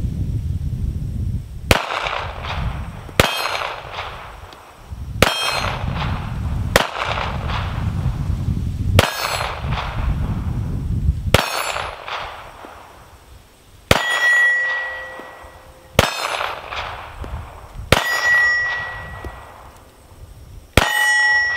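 Ten shots from a Ruger LCP Max .380 ACP pocket pistol, fired one at a time about every two seconds. Several hits set the steel targets ringing, plainest after the last three shots.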